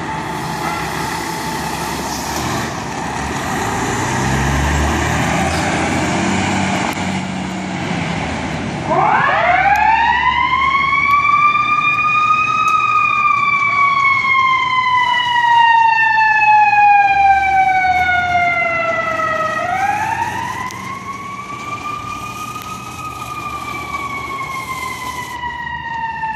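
A fire truck's diesel engine rumbles as it pulls out. About nine seconds in, its mechanical siren winds up quickly to a high wail, then slowly coasts down. Near twenty seconds it winds up again and coasts down once more.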